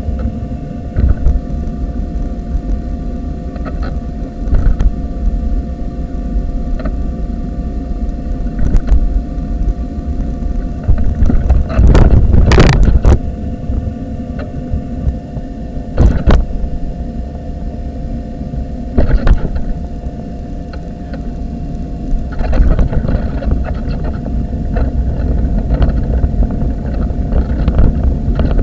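Wheelchair rolling over tarmac, heard through a camera fixed to the chair: a steady low rumble of wheels and frame vibration with a constant hum underneath. Sharp knocks and rattles come as it goes over bumps; the loudest jolt is about twelve seconds in, with single knocks a few seconds later.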